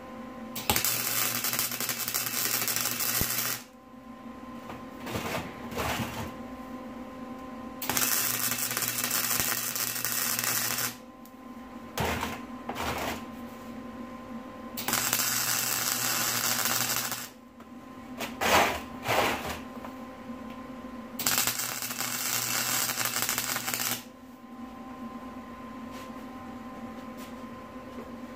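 Wire-feed welder arc welding power-ball cups onto steel C-channel brackets: four welds of about three seconds each, with a few short tacks between them.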